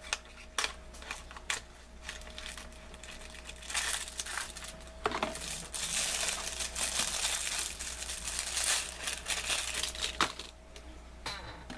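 Plastic packaging crinkling and crackling as it is handled and pulled open. There are a few sharp clicks in the first couple of seconds, the crinkling grows dense from about four seconds in, and it stops near the end.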